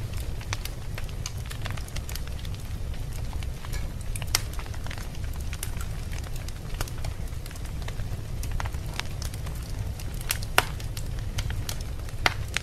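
Wood fire crackling in a fireplace: scattered small snaps and pops over a low steady rumble, with a few sharper pops, the loudest near the end.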